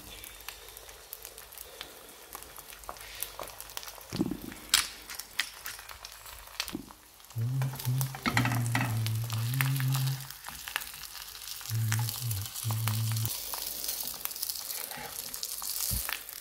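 Egg frying in oil in a nonstick pan: a steady sizzle with crackles and pops, and a spatula scraping as it slides under the egg. Twice in the middle a low buzzing hum comes in, for about three seconds and then about a second and a half.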